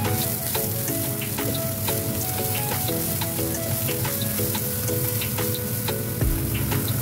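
Chopped mushrooms and diced onion sizzling in hot oil in a wok while a silicone spatula stirs them, with light ticks from the pan. Background music with short repeating notes plays over it.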